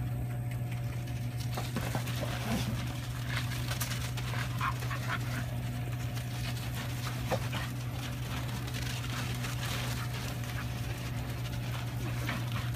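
Australian Cattle Dog making short, scattered high calls as it works sheep on a long line, over a steady low hum.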